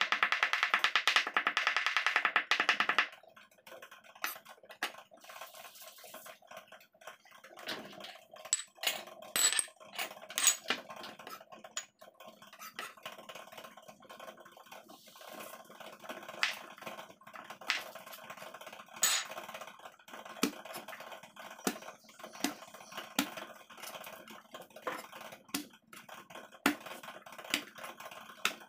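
Fast knife chopping on a cutting board, a dense run of rapid strikes lasting about three seconds, then scattered single knife taps and knocks as food is cut and moved. Quiet background music runs underneath.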